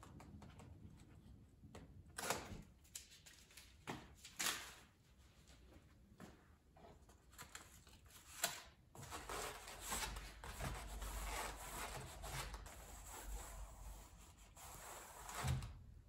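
Aluminum foil tape being handled and rubbed down by hand along a seam in rigid foam insulation board: faint crinkling with a few sharper crackles, then a longer stretch of rubbing about nine seconds in.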